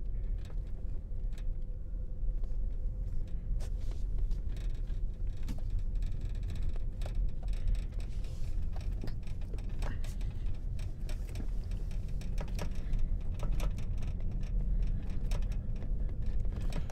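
Car rolling slowly over a rough gravel road, heard from inside the cabin: a steady low rumble with frequent small clicks and knocks from stones under the tyres and the car rattling.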